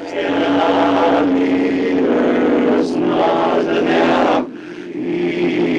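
Voices chanting in long held notes, with short breaks between phrases and a hissed 's' sound about three seconds in.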